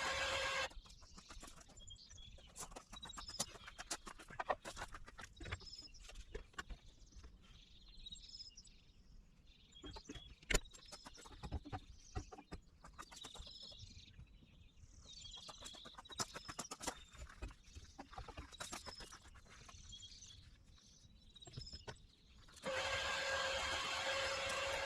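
Birds chirping, with many scattered sharp clicks and knocks. A loud steady mechanical hum cuts off about a second in and comes back suddenly near the end.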